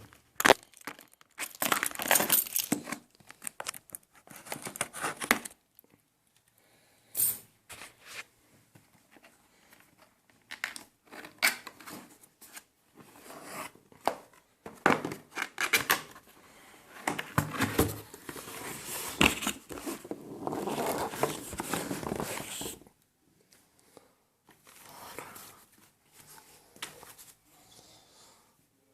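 Keyboard packaging being opened and handled: irregular bursts of crinkling and tearing plastic and paper, with short pauses between them.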